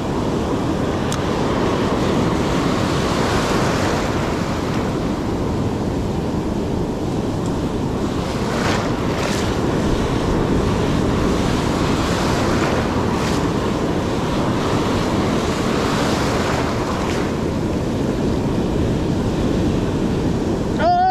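Ocean surf breaking and washing up the beach as a steady rush, swelling louder a few times as waves come in.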